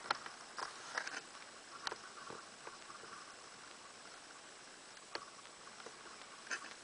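Faint, irregular clicks and taps over a quiet outdoor background, clustered in the first two seconds and again twice near the end.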